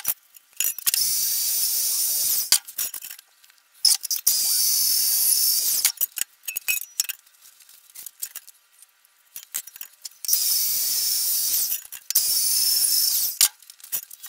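Four short bursts of MIG welding on steel tubing, each a steady hiss lasting about a second and a half, with light metallic clinks of the tubing between them.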